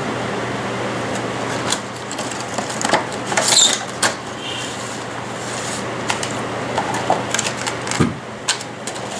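Scattered light clicks and knocks with a brief rustle about three and a half seconds in, over a steady hiss: a boxed portable Bluetooth speaker and its packaging being handled during unboxing.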